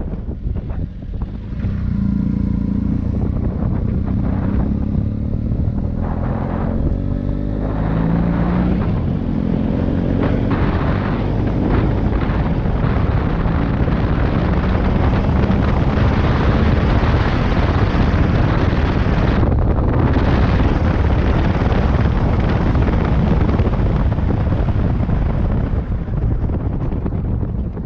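Motorcycle engine accelerating, its pitch rising in steps through the first several seconds, then running steadily at speed with wind buffeting the microphone.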